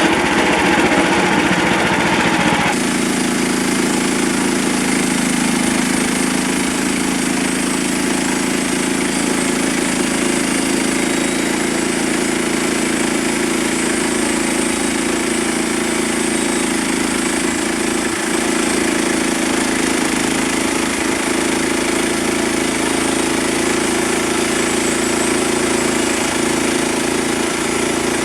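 Frontier OS27 portable sawmill's gasoline engine running steadily. About three seconds in, the harsher high-pitched noise drops away, leaving an even engine hum.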